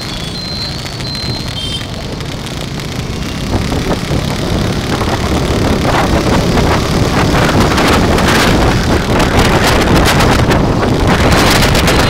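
Wind rushing over the microphone of a moving motorbike, with its engine and road and traffic noise beneath, growing louder about three and a half seconds in as the bike picks up speed. A faint high beep repeats in the first couple of seconds.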